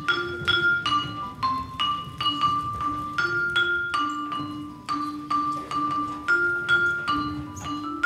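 Tuned mallet percussion, a Yamaha bar keyboard played with soft round-headed mallets, playing a steady repeated figure of struck notes, about three a second, moving among a few neighbouring pitches, each note ringing until the next.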